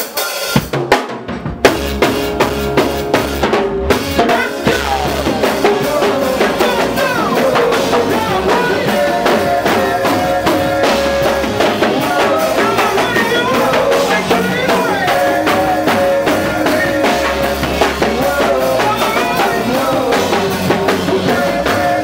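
Live go-go band starting a song: the drummer taps it in with a few scattered drum hits, then the full band comes in about four seconds in, with the drum kit playing a steady go-go groove under bass and keyboard lines.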